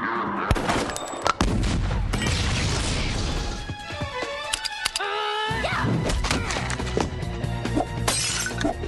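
An explosion goes off about a second and a half in, with shattering and crashing debris, over background music.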